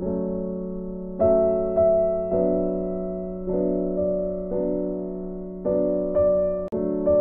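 Background music: slow, gentle piano notes, a new note or chord about once a second, each fading away, with a momentary cut-out near the end.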